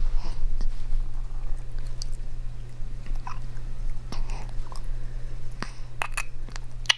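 Newborn baby's small wet lip-smacking and mouth clicks, scattered at first and bunching into a quick run of sharp clicks near the end, over a steady low hum. The smacking is a feeding cue, which the parents take as hunger.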